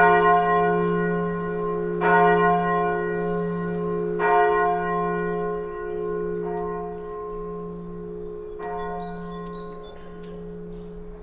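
Church bell ringing, a stroke about every two seconds over its long humming tone, the strokes growing weaker; after the last stroke, about two-thirds in, the bell's hum fades away.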